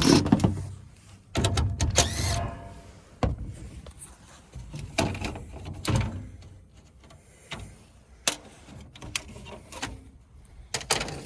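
Sheet-metal clanks, knocks and a short scrape as the panels and fan parts of a Trane package heat pump are handled with the power off. The loudest clanks come at the start and between one and two and a half seconds in, followed by lighter scattered knocks.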